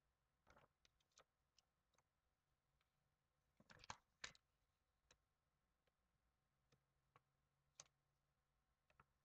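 Faint scattered clicks and taps of photo prints being laid on, and slid across, the glass of a picture frame, with a louder cluster of taps about four seconds in.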